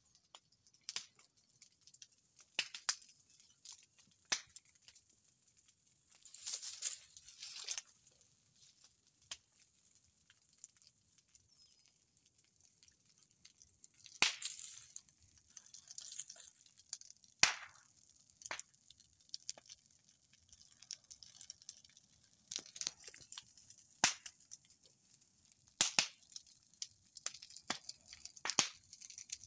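Irregular sharp snaps and crackles of dry leaf litter and cut bamboo, with a few longer crackling stretches.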